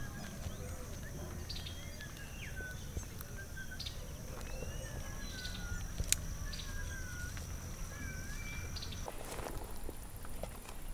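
Open-country ambience: several birds calling with short whistled notes that rise and fall, over a steady high insect-like whine and a low rumble. About nine seconds in, the whine shifts higher and some brief rustling comes in.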